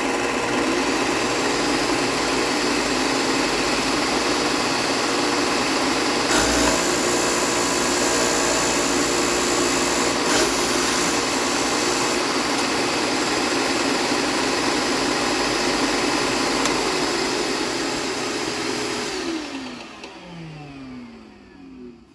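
Bench disc sander running with a steady motor hum and sanding hiss, harsher for several seconds in the middle as work is held to it. Near the end it is switched off and the motor's pitch falls as it spins down to a stop.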